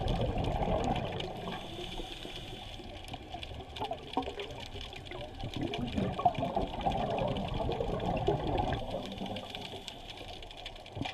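Muffled underwater water noise around the camera: irregular bubbling and sloshing that swells at the start and again around the middle.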